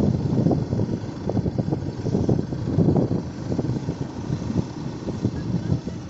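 Low, irregular rumble of wind buffeting a phone's microphone while it is carried along, rising and falling in gusts.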